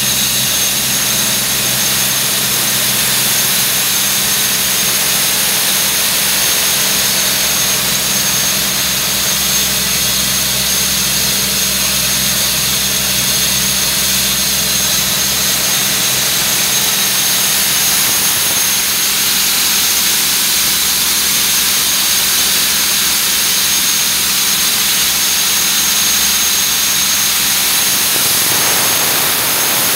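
Doosan D24 four-cylinder diesel engine of a Doosan C185 portable air compressor running steadily, with a steady hiss over the engine note. About two seconds before the end the low engine tone drops away, leaving mainly the hiss.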